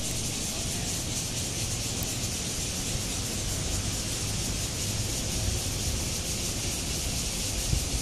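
Cicadas chorusing in the trees: a steady, high-pitched buzzing drone that never breaks, over a low rumble.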